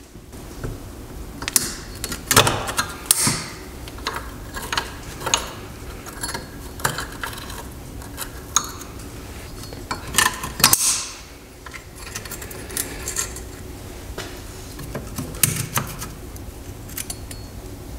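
A metal tool clinking and scraping against the rusty return springs and shoe hardware of a 2012 Subaru Forester's rear parking brake as the top springs are pried off. Irregular clicks, with a couple of longer scrapes about two seconds in and again around ten seconds in.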